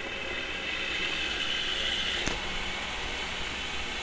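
Homemade Newman motor running on battery power, its rotor spinning on skateboard bearings with the commutator switching current to the coil: a steady mechanical whir, with a single click about two seconds in.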